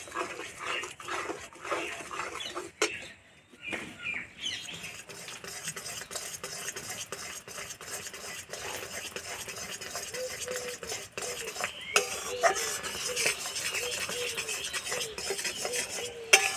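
Spatula stirring and scraping melting sugarcane jaggery in a metal kadai, knocking against the pan now and then. In the second half the syrup hisses and bubbles as it comes to the boil.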